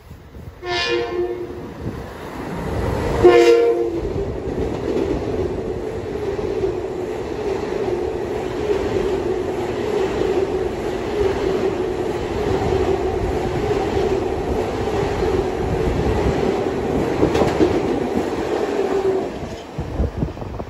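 Long Island Rail Road electric commuter train sounding two short horn blasts as it approaches, the second louder, then running past with a steady hum and wheel-on-rail noise that drops away near the end.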